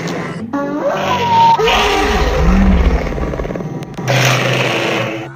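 Stegosaurus creature sound effect, a mix of stegosaurus and woolly rhinoceros calls: several separate rough calls in a row, each rising and then falling in pitch. The last starts about four seconds in.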